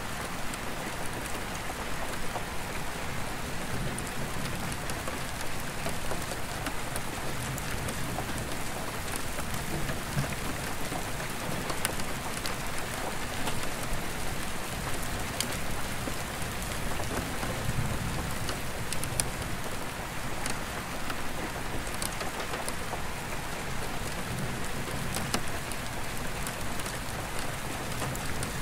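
Steady rain falling on an attic skylight's glass pane, with individual drops ticking sharply against it. Low rumbles of distant thunder come and go underneath.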